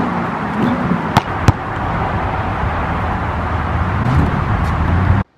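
A basketball hits the hoop twice in quick succession about a second in, over a steady outdoor rumble; the sound cuts off suddenly near the end.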